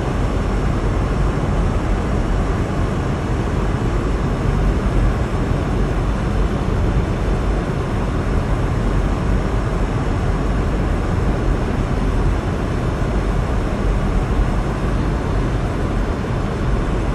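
Steady road and engine noise of a car driving, heard from inside the cabin: an even rumble with no distinct events.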